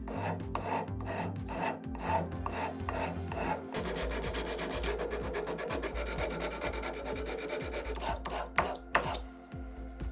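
Hand tool rubbing and scraping on metal in repeated strokes: about two even strokes a second at first, then faster and denser, with a few sharp clicks near the end.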